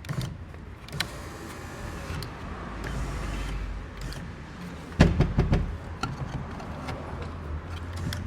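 Ford Fusion power window motor and regulator lowering the door glass with the door trim panel off, a steady motor hum with light clicks and scraping. About five seconds in there is a loud clunk, the loudest sound.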